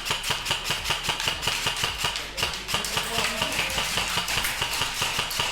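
Airsoft electric rifle (AEG) firing a rapid string of shots, about five a second, in close-quarters play, with no break until just after the end.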